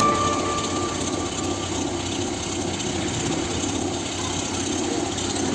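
Engine of a water pump running steadily, feeding water through hoses into a hand-drilled borewell.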